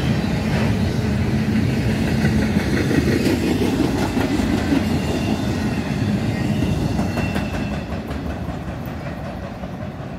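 Double-stack container well cars of a freight train rolling past, steel wheels clicking over the rail joints, the sound fading near the end as the last car goes by.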